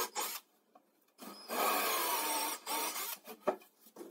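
Cordless drill boring into laminated chipboard in short bursts: the motor's whine under the bit's cutting noise, stopping and restarting a few times. A few sharp clicks and knocks near the end.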